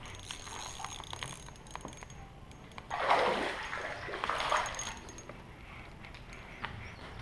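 Water splashing and sloshing, in two louder bursts a few seconds in, with small clinks and clicks around them.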